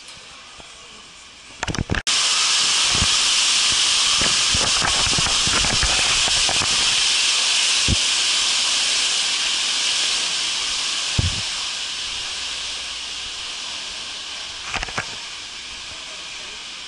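A loud, steady rushing hiss starts abruptly about two seconds in and slowly fades over the last several seconds, with a few scattered thumps from footsteps.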